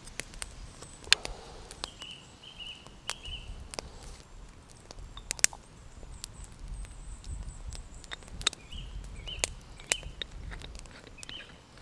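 Light, irregular clicks and taps of a metal moka pot being handled as coffee is levelled in its basket and the top is fitted on. A small bird chirps in short runs of notes, twice.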